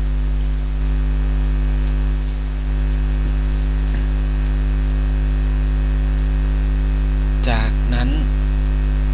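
Steady electrical mains hum at about 50 Hz with its overtones, picked up on the recording. A short vocal sound comes about seven and a half seconds in.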